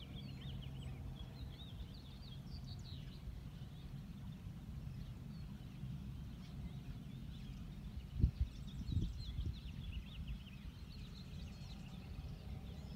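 Outdoor ambience over a steady low rumble, with small birds chirping on and off and a couple of soft thumps a little past the middle.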